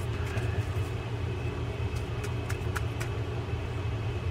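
Steady low hum with a few faint, light clicks, mostly between two and three seconds in, from handling the small parts of a partly disassembled baitcasting fishing reel.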